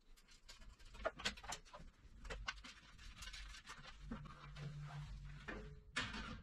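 Scattered light clicks and taps of assembly hardware being handled: small bolts picked from a loose pile and a sheet-steel stand beam set against the bandsaw's metal housing.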